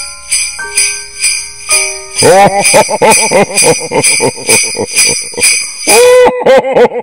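Sleigh bells jingling in a steady beat over a simple Christmas melody in held electronic tones. About two seconds in, louder warbling tones join in time with the bells.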